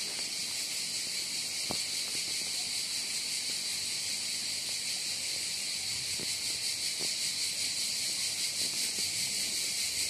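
Dense chorus of insects chirring, a steady high-pitched shrill with a fine fast pulse, with a few faint clicks.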